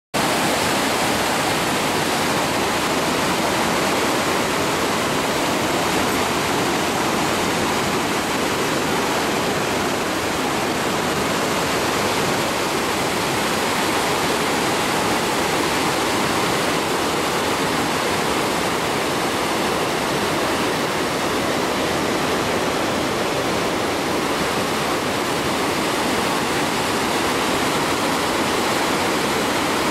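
Muddy floodwater pouring over a weir and churning in turbulent white water below it: a loud, steady rush of water.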